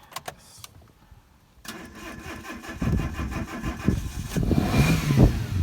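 Car engine being cranked with the accelerator floored, catching and starting. After a second and a half of near quiet with a few clicks, the engine sound comes in and grows louder about three seconds in, then rises briefly near the end.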